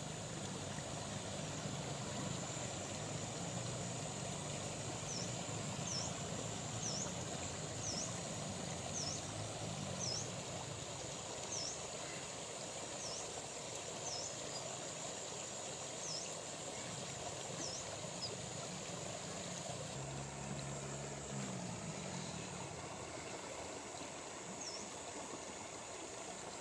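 Quiet rural roadside ambience: a steady hiss with a faint high whine, and a small bird repeating a short chirp about once a second for a stretch. A motorbike engine hums in the distance about two-thirds of the way through.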